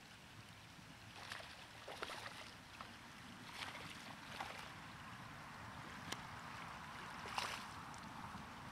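Several short splashes of water over a steady low hiss, with one sharp click about six seconds in.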